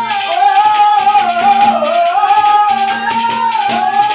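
Haryanvi folk ragni accompaniment: harmonium and dholak under a held melody line that slides in pitch, with a hand rattle shaken in a steady rhythm.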